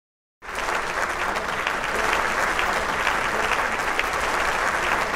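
A crowd applauding, steady clapping that starts suddenly about half a second in.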